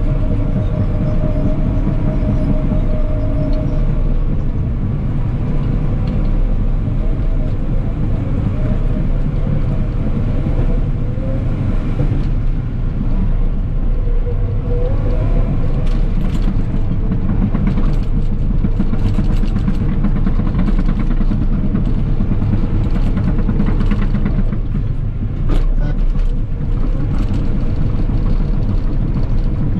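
Cat 963K track loader's diesel engine running steadily under working load, heard from the operator's position, with a wavering whine in the first few seconds and occasional metallic clanks later on.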